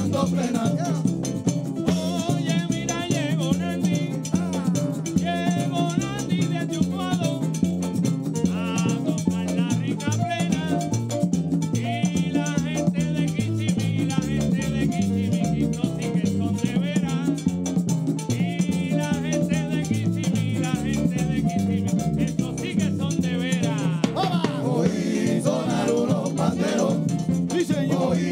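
Live Puerto Rican plena: panderos (hand-held frame drums) beating a steady rhythm with a güiro scraping along, and men singing phrases into microphones over it.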